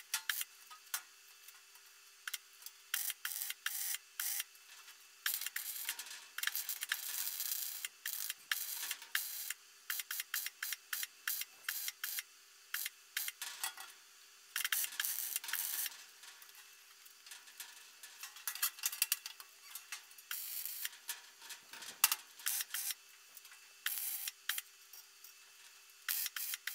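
Electric welding of thin mild steel sheet onto a steel frame: short stitch welds, each a run of crackling and sizzling that starts and stops every second or two, with a faint steady hum underneath.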